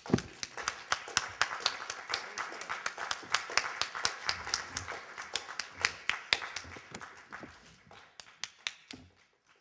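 Audience applauding: many separate hand claps that thin out and stop near the end.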